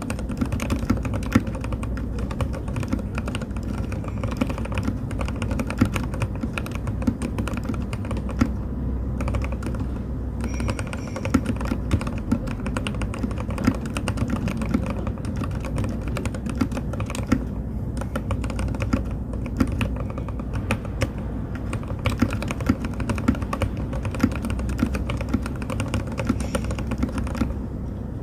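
Continuous typing on a mechanical keyboard fitted with Frankenstein linear switches mixed from C3 Kiwi and Jwick Yellow parts: a steady, dense run of key clacks with no pauses.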